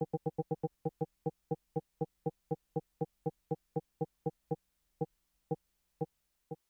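Short, identically pitched synthesizer blips triggered by clock gates from a GateStorm eurorack gate-generator module. They come about eight a second, drop to about four a second about a second in, then to about two a second near the middle, as the lane's time base is changed to a slower clock division.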